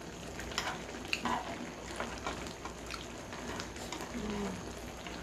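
Kimchi hotpot bubbling steadily in its pot, with scattered short clicks and smacks of eating.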